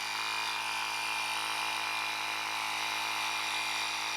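Small electric tire inflator running steadily with a constant high motor whine, pumping an electric unicycle tire up to 32 PSI.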